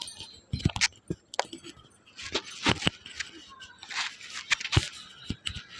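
Razor strokes scraping through fine facial hair, picked up close by a microphone clipped at the ear: a quick, irregular series of short, crisp scrapes.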